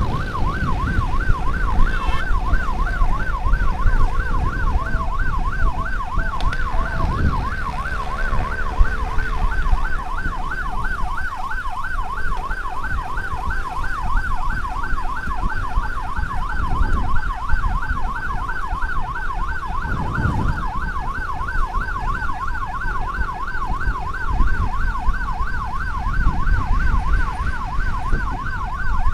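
Emergency vehicle siren sounding continuously in a fast yelp that rises and falls rapidly, with a steady low rumble of road noise underneath.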